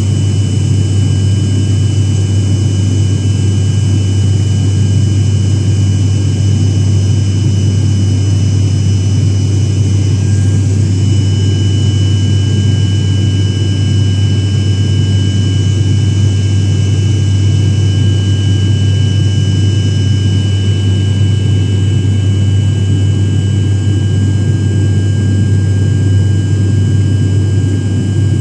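Steady engine drone inside an airliner cabin in flight: a strong, even low hum with a rushing noise and faint, steady high-pitched whines over it.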